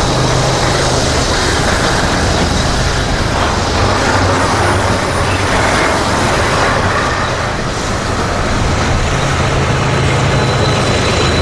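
Double-stack intermodal freight cars rolling past close by, a steady loud rush of steel wheels on rail. A low diesel drone strengthens near the end as a mid-train locomotive draws near.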